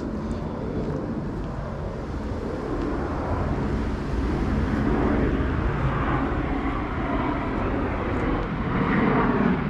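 Steady low rumble of an aircraft passing overhead, building gradually over several seconds and loudest near the end.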